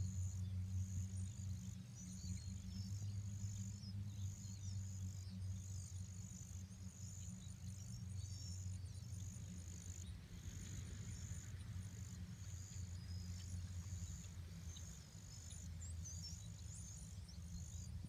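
Insects trilling in even pulses about once a second, with scattered faint chirps from a swarming flock of birds over a steady low hum.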